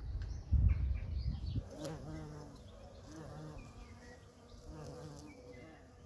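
A flying insect buzzing in several on-and-off spells, a low steady hum that swells and fades as it comes close and moves away. A low rumble in the first second and a half.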